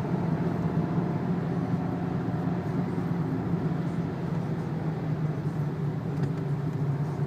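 Cabin sound of a Renault 2.0-litre turbo diesel car driving steadily at low speed on a wet track: an even engine drone mixed with tyre and road noise.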